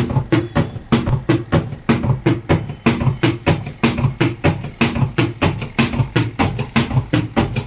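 Marq washing machine knocking in a fast, drum-like rhythm, about three to four knocks a second, each a low thud with a sharp click.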